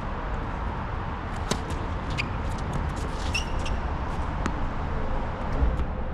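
Tennis balls being struck by rackets during doubles play: a few sharp, scattered impacts, the strongest about one and a half seconds in and another later on, over a steady low rumble.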